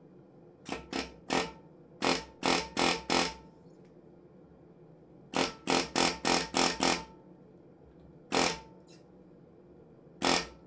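Hand hammer striking a top tool held against red-hot steel on an anvil, each blow sharp with a light ring. The blows come in runs: three, then four, a pause, six quick blows, then two single blows near the end.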